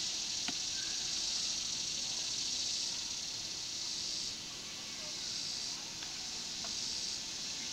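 Cicadas buzzing in the summer trees: a steady high buzz that drops away and comes back a few times.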